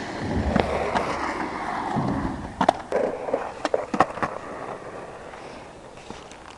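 Skateboard wheels rolling on asphalt, the rolling noise slowly fading. Sharp clacks come in a cluster a few seconds in.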